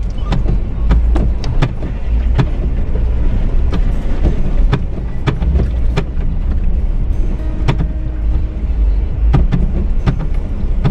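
Off-road vehicle creeping through dense brush: a steady low rumble of engine and tyres, with many irregular sharp snaps and scrapes of branches against the body.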